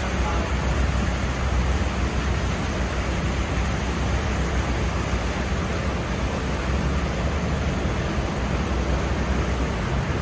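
Steady rushing noise over a deep, constant low rumble: wind and water noise aboard a cruise ship under way.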